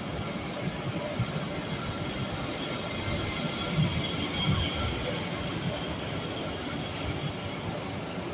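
Regional train rolling past along the platform and pulling out, a steady rumble of wheels on track with a faint high whine that is strongest around the middle.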